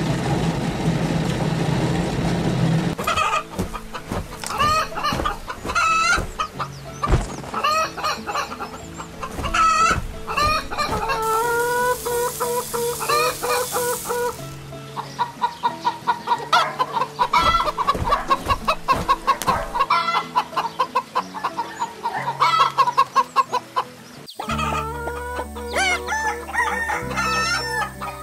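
Cartoon hens clucking and a rooster crowing over light background music, after a steady rushing noise in the first three seconds. About eleven seconds in there is a few seconds of hissing, like grain being poured out of a feed sack.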